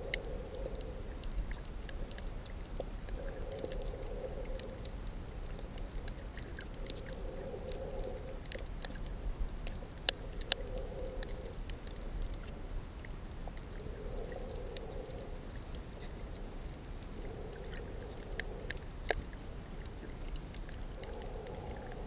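Underwater sound on a coral reef: a steady low rumble with a muffled swoosh about every three to four seconds, and scattered sharp clicks, a few of them louder about ten seconds in and near the end.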